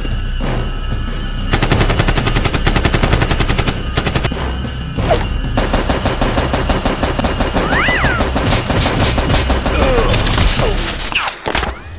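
Rapid automatic-gunfire sound effects dubbed over a toy blaster being fired, many shots a second. The firing starts about one and a half seconds in, breaks off briefly around four seconds, then runs on in long bursts until a drop near the end.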